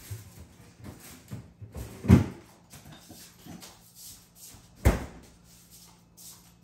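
Two heavy thuds about three seconds apart, with lighter knocks between them, from things being handled and set down on a kitchen worktop.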